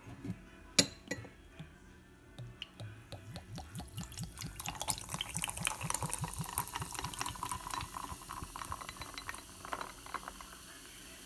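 Kombucha poured from a glass bottle over ice into a drinking glass: a few sharp clinks in the first couple of seconds, then a long glugging pour with the carbonated drink fizzing as it foams up, tailing off near the end.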